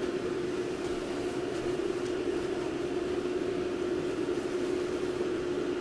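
A steady hum held at one pitch over a constant hiss of background noise.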